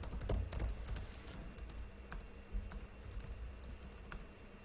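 Typing on a computer keyboard: a run of irregularly spaced key clicks.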